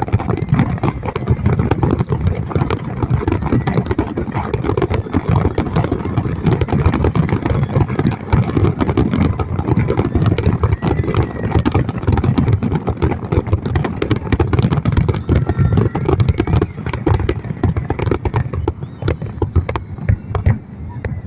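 Fireworks going off in a rapid, continuous barrage of bangs and crackles, thinning out near the end.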